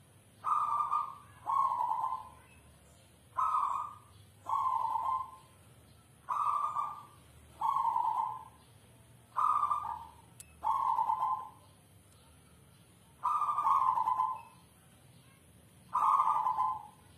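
Zebra dove (perkutut) of the South Sumatran type cooing its manggung song: six phrases about three seconds apart, each a quick run of low notes that falls slightly in pitch.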